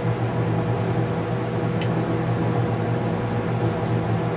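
Steady low electrical hum with a fan-like rushing noise, and a single faint click a little under two seconds in.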